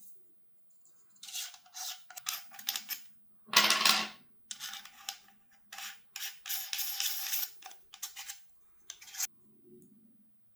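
Unboxing handling sounds: packaging and parts rustling and scraping in a series of short bursts, the loudest about three and a half seconds in.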